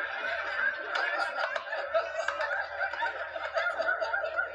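A group of kids laughing, several voices at once, heard through a television's speaker.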